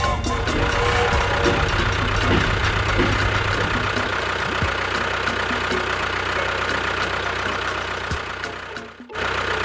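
A small motor running steadily with a regular ticking, about four ticks a second; the sound cuts out suddenly near the end.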